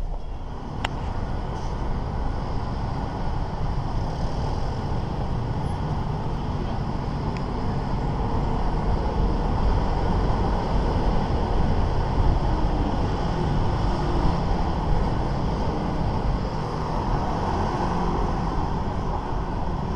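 Steady road noise of riding through city traffic: a continuous engine and traffic rumble with heavy low wind-like noise on the microphone, and a single click about a second in.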